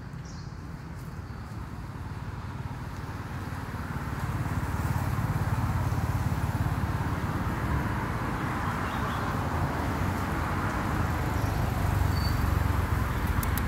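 Steady outdoor background noise, a low rumble with a hiss over it, swelling louder about four seconds in.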